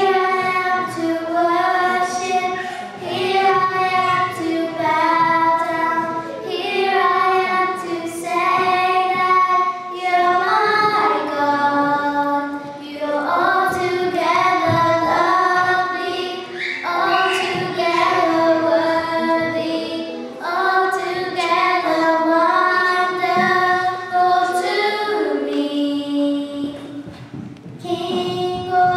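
Children singing a praise hymn into microphones, held notes stepping from one to the next in a steady melody.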